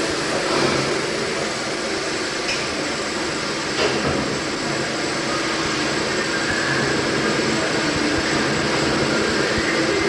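Hesketh colliery steam winding engine, a 500 horsepower twin-cylinder engine by Worsley Mesnes of Wigan, running during a wind: a steady mechanical noise with sharp knocks about two and a half and four seconds in.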